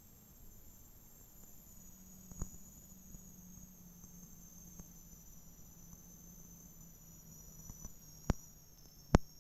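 Faint high whine sinking slowly in pitch over a faint low hum, broken by a sharp click a couple of seconds in and two louder sharp clicks near the end.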